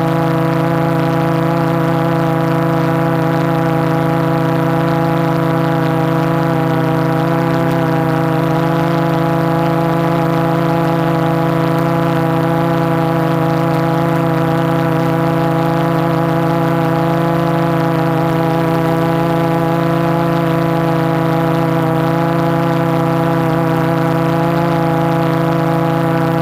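Quadcopter's four MultiStar 2212 920kv brushless motors spinning 12x4.2 carbon fibre props in a hover: a steady hum heard from the onboard GoPro, its pitch holding nearly constant with small wavers.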